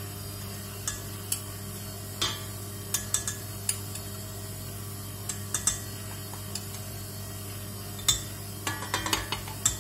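A metal spoon clinking and tapping against bowls as flour is spooned into a stand mixer's bowl: scattered light clinks, with a quick cluster near the end. A steady low hum runs underneath.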